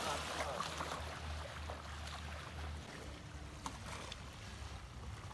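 Shallow water splashing and lapping, strongest in the first second, over a low wind rumble on the microphone.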